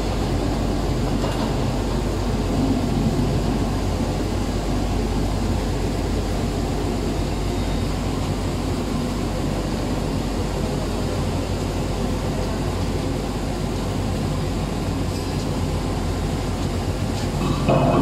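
Stainless-steel chili pepper dry-cleaning machine and processing line running: a steady mechanical drone with a constant low electric hum, swelling briefly louder near the end.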